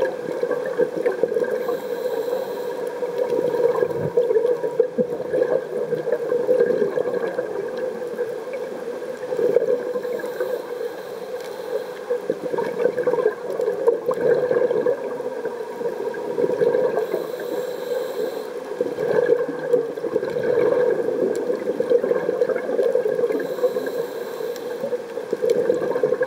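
Underwater sound of scuba diving: a steady bubbling, gurgling rush from a diver's regulator and exhaled bubbles, with a faint higher hiss coming back about every seven seconds.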